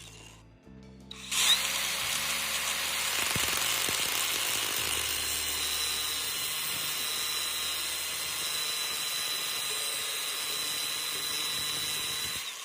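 Handheld power tool starting up sharply and running steadily with a high whine, then stopping near the end.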